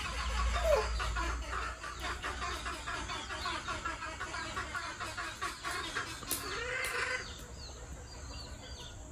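Chickens clucking, a dense run of short calls, with a low rumble in the first couple of seconds.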